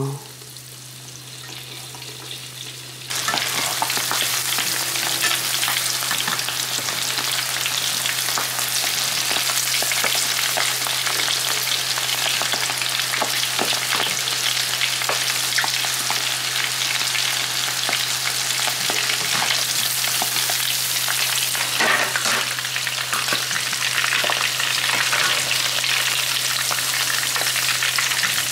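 Breadcrumb-coated swordtip squid (calamari) deep-frying in hot oil: a dense, crackling sizzle that jumps much louder about three seconds in, as the pieces are stirred with a wire skimmer. A steady low hum runs underneath.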